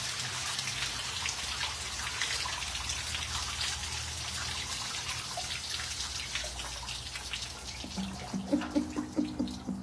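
Water from a rock-wall waterfall shower splashing and trickling down the stone, with scattered drips, slowly getting quieter as the flow is shut off.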